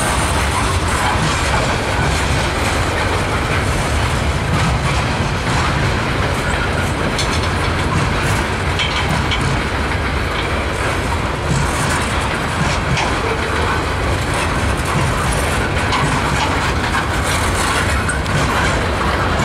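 Cars of a mixed freight train rolling past: the steady rumble of steel wheels on the rails, with occasional faint clicks over the rail joints.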